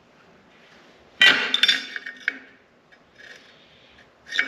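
Metal parts clattering onto a steel welding table: a sharp clank with ringing about a second in, a faint rattle, and another clink near the end.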